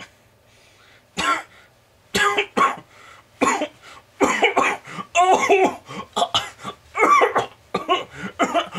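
A man's voice coughing and hacking over and over, choking on food, starting about a second in.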